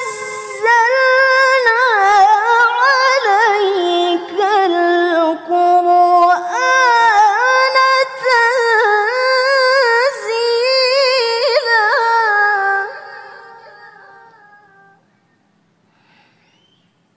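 A woman reciting the Qur'an in tilawah style: one long melodic phrase of chant with wavering, melismatic ornaments, heard through microphones. The phrase ends about thirteen seconds in and its echo fades away over the next two seconds.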